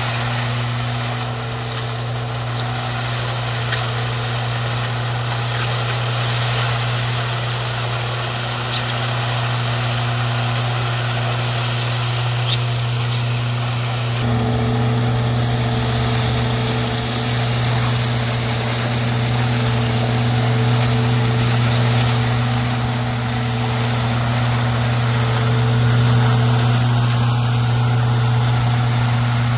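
An engine running steadily with a constant low hum; about halfway through its tone shifts and its higher overtones grow stronger.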